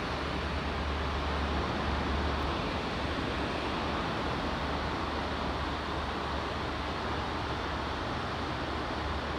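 Steady outdoor background noise: an even rushing hiss over a low rumble, with no distinct events.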